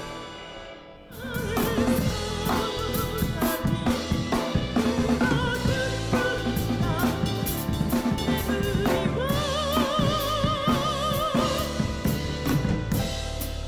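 A band recording with a full drum kit: one song fades out and about a second in the next begins, with kick, snare and cymbals driving under a sung melody that holds a long note with vibrato about two-thirds of the way through.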